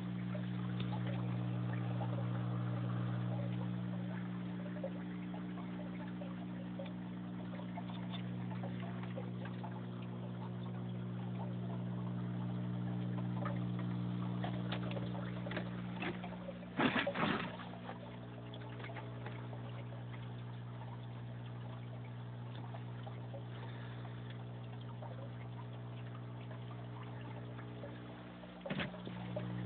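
Aquarium filter running: a steady electrical hum with water trickling into the tank. It is broken by a brief louder rustle about halfway through and a smaller one near the end.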